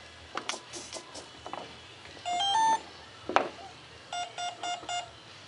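Brushless speed controller of a Detrum 70mm EDF combo powering up, preceded by the click of the battery plug: a rising three-note startup tune, a sharp click, then four short evenly spaced beeps, the controller's count of the four-cell LiPo before it arms.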